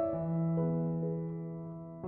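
Slow, soft piano background music: a low note struck just after the start and a few more held notes, dying away toward the end.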